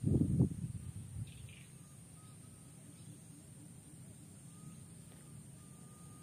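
A short burst of noise in the first half second, then quiet outdoor background with a steady low hum and a faint thin tone that comes and goes.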